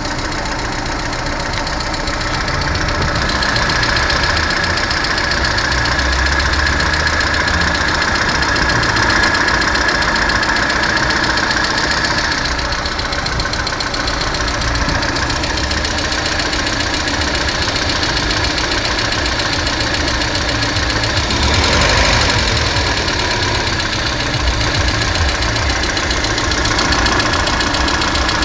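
Lada Kalina's 1.4-litre 16-valve four-cylinder petrol engine running with a knock. The engine swells briefly about twenty-two seconds in and falls back to a steady run.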